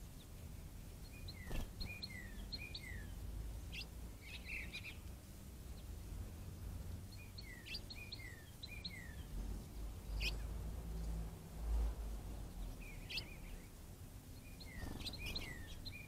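A songbird singing repeated short phrases of quick down-slurred chirps over a steady background hum. A low rumble swells about two-thirds of the way through.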